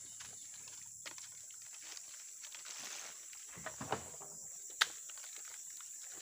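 A few knocks and rustles as a long metal spike is worked into oil palm fruit bunches, with one sharp click a little before five seconds in the loudest. Under it, a steady faint high hiss.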